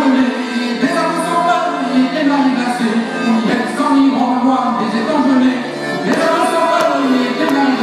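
A man singing a Breton dance song (chant à danser) into a microphone, accompanied by a diatonic accordion holding a steady low note.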